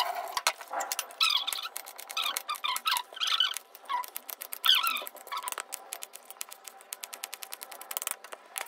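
A knife chopping potatoes against a steel plate: a quick run of sharp taps, thickest in the second half. Short squeaky sounds come and go in the first half.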